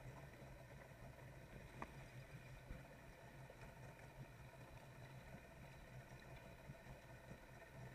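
Faint, steady low drone of a Polaris SL 900 personal watercraft engine running along.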